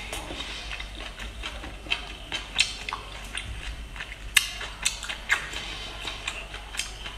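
Close-up eating sounds: chewing steamed garlic-topped oysters, with irregular sharp wet clicks and taps. Near the end an oyster shell is picked up off the platter.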